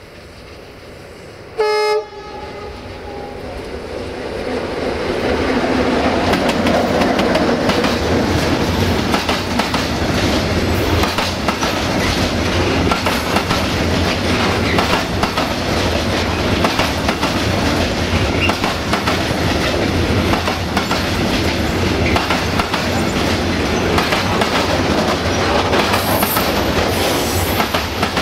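A short blast of a diesel locomotive's horn about two seconds in. Then a CFR Class 60 (060-DA) diesel-electric locomotive hauls a freight train past, growing louder until it becomes the steady rumble and clickety-clack of covered wagons rolling by.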